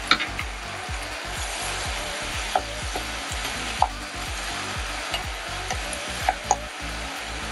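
Sliced beef sizzling in sauce in a frying pan as a wooden spatula stirs it, with a few short knocks of the spatula against the pan.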